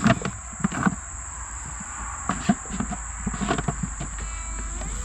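Steady high-pitched insect chirring, crickets, held without a break, with a few scattered short knocks and scrapes over it.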